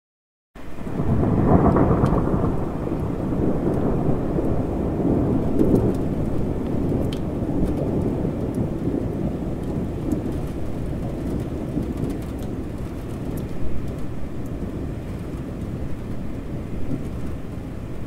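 Thunder and rain: a long, deep rumble of thunder comes in suddenly about half a second in, is loudest about two seconds in, then slowly dies away over steady rain with scattered drop ticks.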